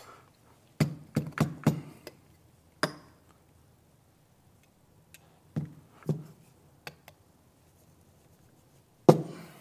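Metal clicks and taps of an espresso portafilter being handled and tapped to settle the fresh grounds, then tamped, with a quick run of about five taps early and a single loud knock near the end.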